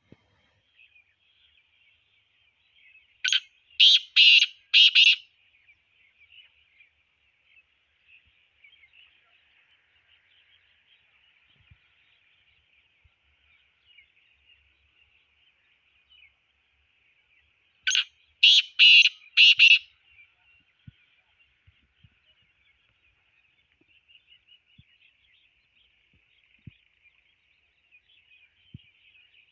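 Male black francolin calling twice, about fifteen seconds apart. Each call is four loud notes in quick succession, a short first note followed by three longer ones, over a faint steady high-pitched background.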